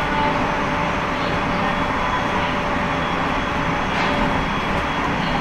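Local train running on the rails, heard from inside the rear car: a steady rumble with a faint steady whine above it, and a single click about four seconds in.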